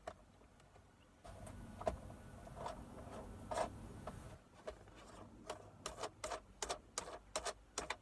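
Hands handling the plastic accessory-socket housing and wiring in a truck dash: rustling and scraping with a few sharp clicks, then a quick run of sharp plastic clicks, three or four a second, in the second half.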